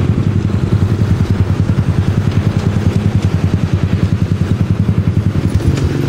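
Motorbike engine running while riding, a low throbbing note with a rapid even pulse that shifts in pitch near the end.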